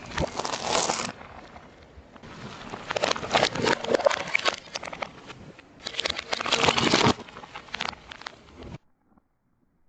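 Objects crunching and crackling as a car tyre rolls over and crushes them, in three loud bursts of sharp crackles: one right at the start, one around three to four seconds in, and one around six to seven seconds in. The sound cuts off abruptly near the end.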